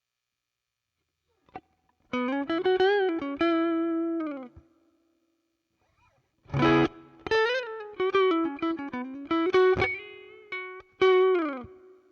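Electric guitar through a Zoom G2 Four's Fender Deluxe Reverb amp simulator, playing two single-note lead phrases with string bends and vibrato. The first starts about two seconds in; the second follows a short gap, opening with a strummed attack.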